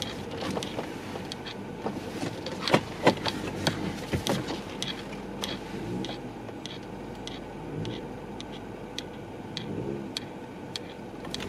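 Car cabin while driving slowly: a steady low road and engine rumble with many irregular clicks and ticks from the camera's hanging strap knocking about, two louder knocks about three seconds in.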